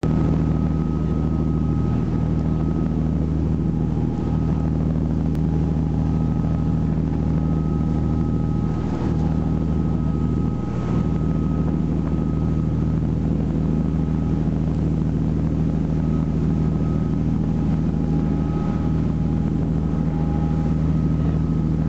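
Fishing charter boat's engine running steadily under way: a constant low drone with a faint steady higher whine, mixed with the rush of the wake.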